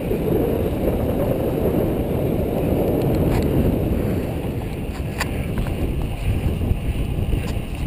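Wind buffeting the microphone of a camera on a moving road bicycle: a steady low rumble mixed with road noise, easing a little near the end, with a couple of faint clicks.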